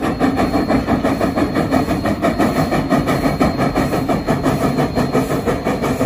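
Steam locomotive working a passenger train, its exhaust chuffing in a fast, even beat.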